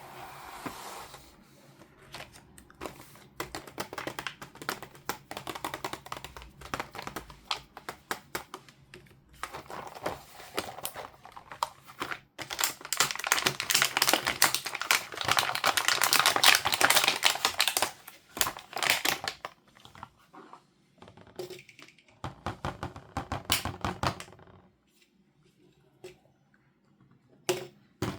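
Plastic toy pieces and packaging being handled: rapid clicking and rustling, densest and loudest in a long stretch about halfway through, then sparser clicks and a couple of knocks near the end.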